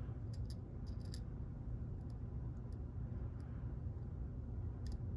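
Faint, scattered light clicks of small metal lock parts being handled during disassembly of a pin-tumbler cylinder, about eight ticks in all, over a steady low hum.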